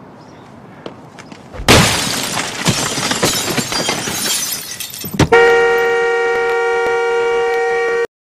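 A baseball bat smashing a car's windows: glass shattering under a quick run of heavy blows starting about a second and a half in. Then the car's horn is held down in one long steady blast that cuts off abruptly near the end.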